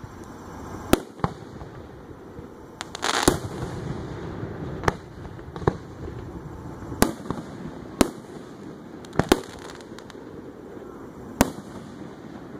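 Aerial fireworks going off: about ten sharp bangs at irregular intervals, two of them close together near the middle, and one longer burst about three seconds in.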